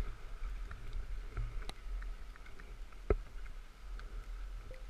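Riding a ski chairlift: a steady low rumble with a few sharp clicks and knocks, the loudest about three seconds in.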